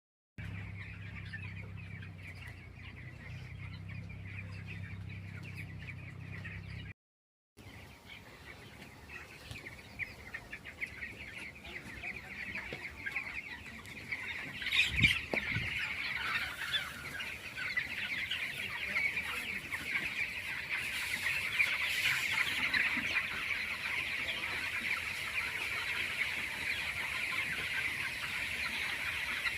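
A large flock of chickens clucking and chirping all at once in a poultry house. For the first several seconds a steady low machine hum runs under it, then stops at a cut. After that the flock's chatter grows denser and louder.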